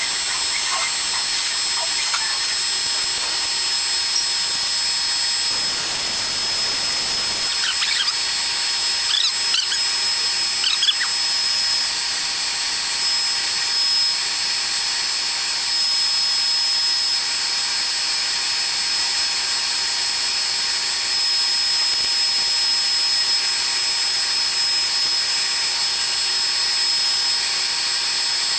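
Friction stir welding machine running, its rotating tool stirring a magnesium alloy plate: a steady high whine of several pitches, with a few short squeaks partway through.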